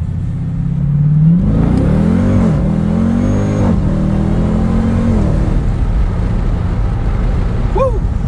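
Dodge Durango SRT Hellcat's 6.2-litre supercharged Hemi V8 at full-throttle acceleration, revs climbing hard through two quick upshifts, heard through a cracked window. After about five seconds the engine note falls away, leaving steady wind and road noise.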